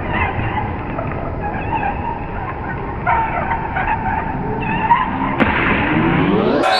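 Muffled indoor lacrosse game sound: shoes squeaking on the rink floor over a steady crowd murmur. A click about five seconds in is followed by a rising whoosh near the end.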